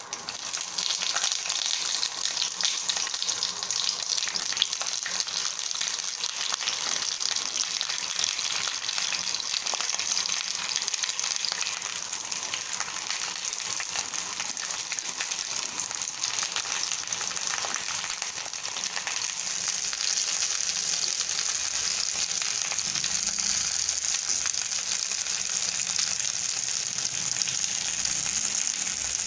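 Whole slit brinjals (small purple eggplants) sizzling and crackling in hot oil. The sizzle starts sharply as they go into the oil and then holds steady while they are sautéed.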